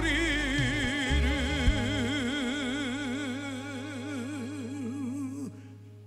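A male singer's voice holds the song's long closing note with a wide, even vibrato over a sustained low accompaniment note. The note fades out about five and a half seconds in.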